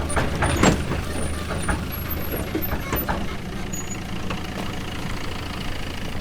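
Tractor engine running with a steady low rumble, with scattered short knocks and rattles and a louder clank under a second in.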